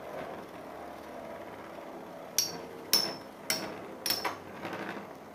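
Two metal Fusion Beyblades, a Meteo L-Drago and a Pre Hybrid L-Drago, spin with a faint hum in a plastic stadium. From about halfway through they clash five times, each a sharp metallic clink with a short ring, about half a second apart.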